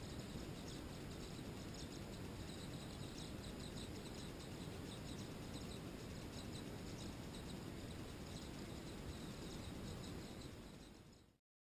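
Tree swallows chirping at the nest box: a rapid, even run of short high calls over a steady low background rumble, fading out near the end.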